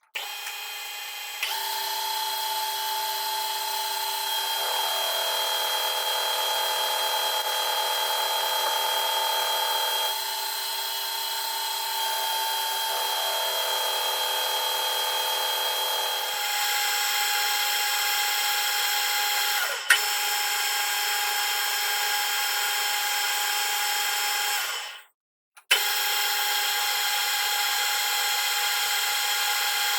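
Metal lathe running steadily while cutting a steel bolt blank, a whine of several held tones. It changes level abruptly a few times and cuts out briefly near the end.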